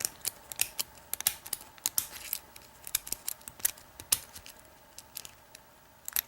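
Small, irregular metallic clicks and scratches of a steel lock pick and tension bar working the pin tumblers inside a Mint Craft deadbolt cylinder as it is single-pin picked.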